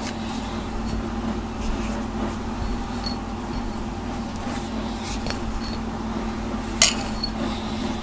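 A cat being brushed with a pet brush: faint strokes and small clicks over a steady low hum, with one sharp click about seven seconds in.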